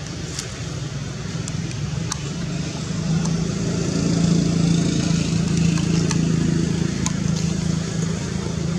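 A steady low engine hum, like a motor vehicle running, that grows louder about three seconds in, with a few brief sharp ticks above it.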